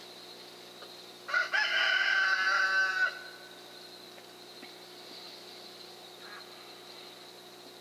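A rooster crowing once, a single pitched crow lasting nearly two seconds, starting about a second in, over a faint steady high-pitched background tone.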